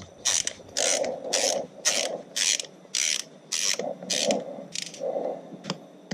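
Hand socket ratchet worked back and forth in quick strokes, its pawl clicking through each stroke, about two strokes a second.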